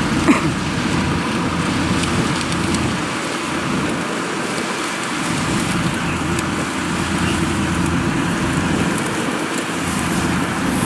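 Steady drone of farm machinery engines under an even hiss: a tracked rice carrier loaded with sacks of grain driving through the field, with rice combine harvesters running in the same field.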